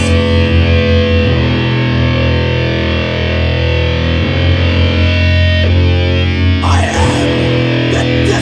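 Metal band playing live: heavily distorted electric guitars and bass holding long, low chords that change every second or two, with drums. Loud and steady, with sharper high strokes, likely cymbals, coming in near the end.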